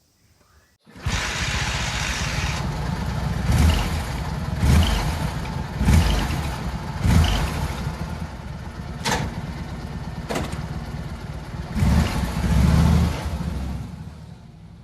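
Kawasaki W650 motorcycle's parallel-twin engine running. It cuts in abruptly about a second in and swells in level several times.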